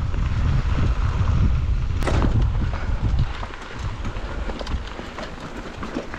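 Wind buffeting the microphone of a camera riding along on a mountain bike, with the bike rattling and clicking over rough ground. A sharp knock comes about two seconds in, and the wind rumble drops away after about three seconds, leaving the rattles.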